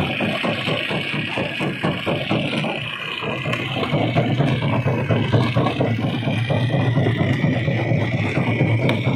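Rock crusher at work: stone clattering and grinding in the crusher over the drone of heavy machinery, with the low drone growing stronger about four seconds in.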